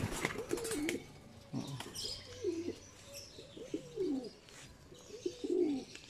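Domestic pigeons cooing: a series of short, low coos, each bending up and then down in pitch, about eight in all with gaps between them.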